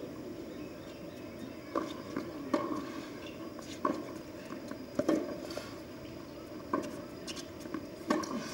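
Tennis ball being struck by rackets and bouncing on a hard court during a baseline rally: a sharp pop every second or so, about seven in all, over a steady low background hum.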